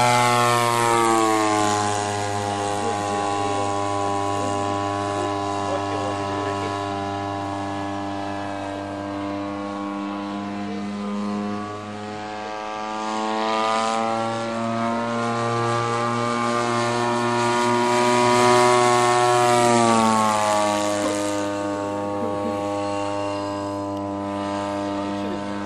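Engine and propeller of a radio-controlled Curtiss Jenny biplane model droning steadily in flight. The pitch drops as the plane passes just after the start and again about twenty seconds in, and the sound swells just before each drop.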